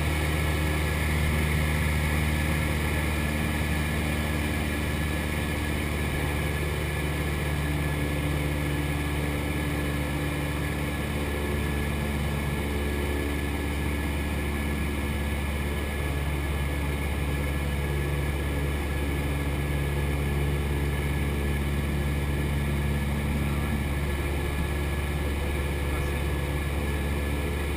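Cessna 172's piston engine and propeller droning steadily, heard from inside the cockpit, with an even hiss over it.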